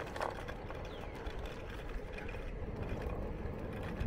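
Scooter rolling along a rough paved trail: a steady rumble of the wheels on the pavement.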